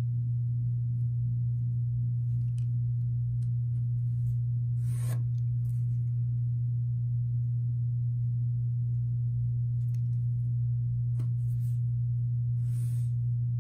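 A steady low hum throughout, with a few faint scratchy strokes of a pencil drawn along a wooden dowel on paper, the clearest about five seconds in and near the end.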